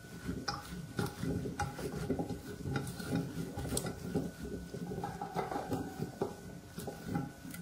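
A bare hand mixing cauliflower florets with a damp flour-and-spice coating in a glass baking dish: irregular rustling and squishing with many small knocks against the glass.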